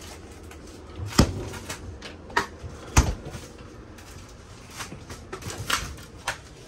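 RV refrigerator doors being shut one after the other: two solid thumps a little under two seconds apart, with lighter knocks and clicks a few seconds later.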